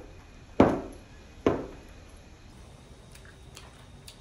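Two sharp knocks close to the microphone, a little under a second apart, each dying away quickly, then only a few faint small clicks.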